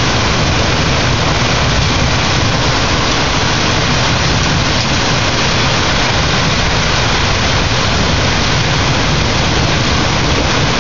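Heavy rain pouring down in a severe thunderstorm: a steady, dense hiss with a low rumble underneath.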